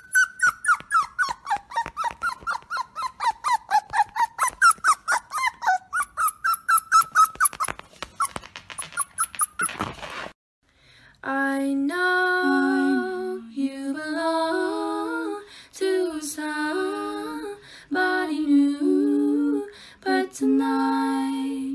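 A puppy's high-pitched whimpering cries, about four a second, rising and falling in pitch for some ten seconds, then cutting off suddenly. Then a hummed tune with held notes that step up and down.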